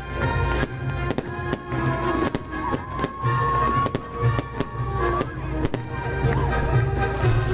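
Fireworks going off in many quick, irregular bangs over loud music, with one long held note in the middle.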